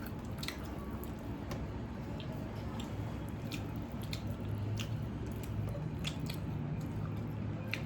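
Close-miked eating sounds of a person chewing watery fermented rice (panta bhat) with chicken curry: wet squishing chews with scattered sharp mouth clicks and smacks, over a steady low hum.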